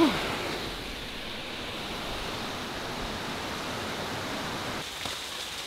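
Steady rush of running water, even and unbroken, with the tail of a voice at the very start.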